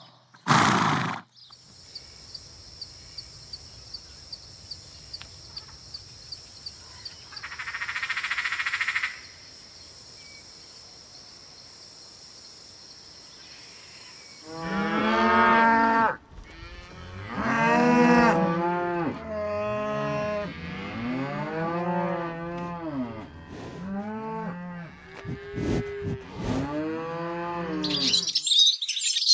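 Cattle mooing: a run of loud calls, one after another, that rise and fall in pitch, starting about halfway through. Before them comes a short loud burst, then a quieter stretch of steady high ringing with regular faint ticks.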